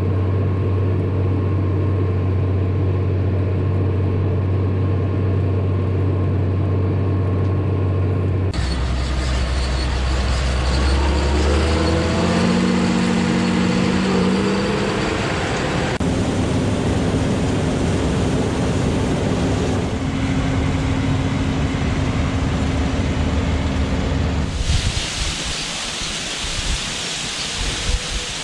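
Engine of a John Deere combine harvester running steadily, its drone shifting suddenly in pitch several times. A steady hiss takes over about 25 seconds in.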